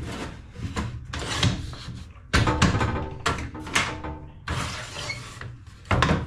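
Hardwood fence palings and a straight board being handled on a table-saw top: wood sliding and knocking, with several sharp knocks, the loudest about two and a half seconds in and again just before the end.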